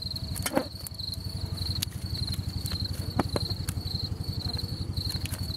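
Crickets chirping in short repeated trills over a steady low, evenly pulsing mechanical hum, with a couple of short knocks about half a second and three seconds in.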